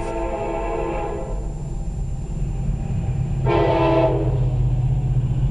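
CSX freight locomotive sounding its chime air horn, one blast at the start and a short blast about three and a half seconds in, over the low rumble of the diesel locomotive growing louder as it passes. Heard from inside a car.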